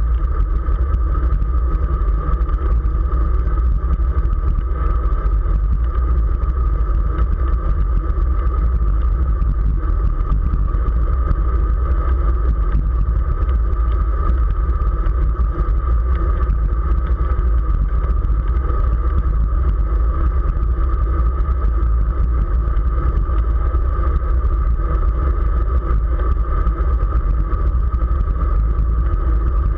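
Wind buffeting the microphone of a camera mounted on a road bike while riding, a loud steady rumble with road and tyre noise beneath.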